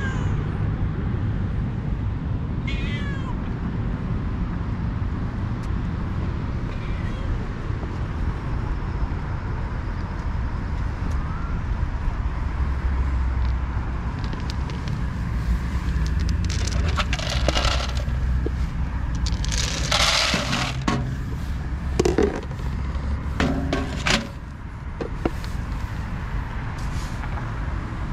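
Stray cats meowing a few times in the first several seconds, over a steady low rumble. Later come bursts of rustling and clattering lasting about a second each.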